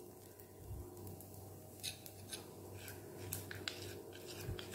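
Faint scraping and clicking of a spoon stirring a thick paste in a small glass bowl, a few strokes from about two seconds in, over a low steady hum.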